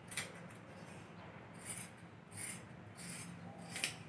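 Large tailor's scissors cutting through thick fabric folded in several layers: about five soft, crisp snips spaced roughly a second apart, with the cloth rubbing as it is turned along the cut.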